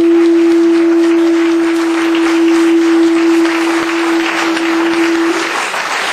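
A horn sounding one long steady note that cuts off near the end, over a wash of clapping and crowd noise.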